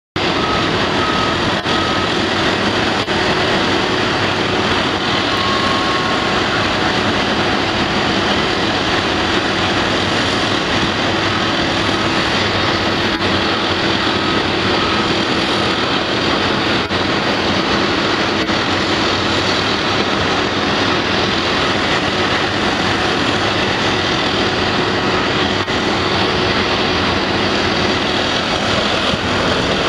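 Steady din of heavy diesel construction machinery, excavator engines running with a constant hum and no pauses.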